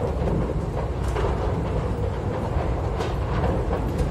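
A large paint-factory fire burning: a steady low rumble with a few sharp crackles and pops scattered through it.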